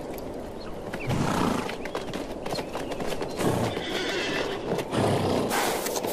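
Feral desert horses calling in low neighs three times, with hooves clopping on the ground.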